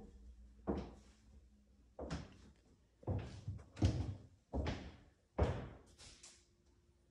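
Footsteps on a hardwood floor: about six walking-pace thuds in an empty room, each trailing off briefly.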